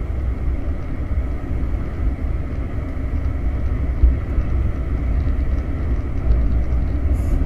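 Motorcycle running at speed, with wind buffeting the action camera's microphone in a loud, constant rumble over the engine.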